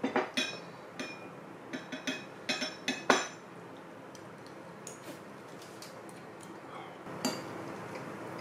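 Metal spoon clinking and scraping against a ceramic rice bowl: a quick run of clinks over the first three seconds, the loudest just after three seconds, then one more near the end.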